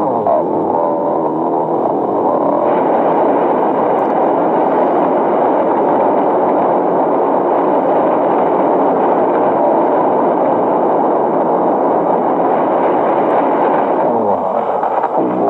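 A loud, steady rushing rumble that fills the whole stretch, with faint pitched voices showing briefly near the start and again near the end.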